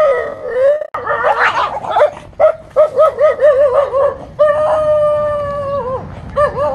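A dog howling and yowling in a run of short, wavering pitched calls, with one long steady howl in the second half.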